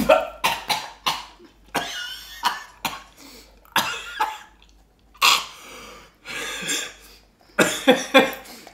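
Two men coughing, clearing their throats and laughing in short repeated bursts, a reaction to sniffing a harsh, chemical-smelling nicotine pouch can.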